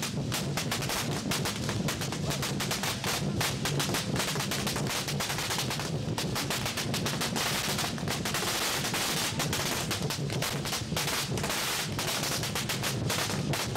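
A long string of firecrackers going off in a rapid, unbroken crackle of sharp bangs. Lion-dance drumming sounds beneath it.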